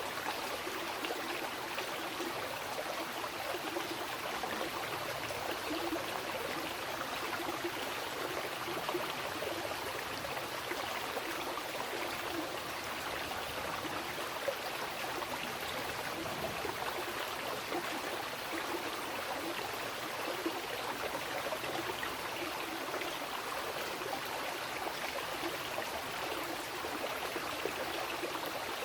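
Mountain river rushing and babbling over rocks, a steady, unbroken flow of water.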